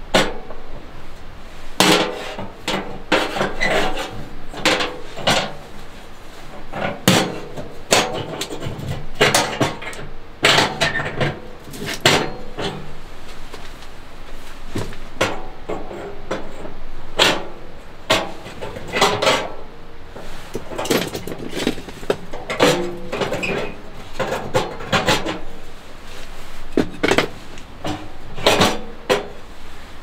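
Irregular knocking and clattering of hard objects being handled, many sharp knocks with short ringing after some of them.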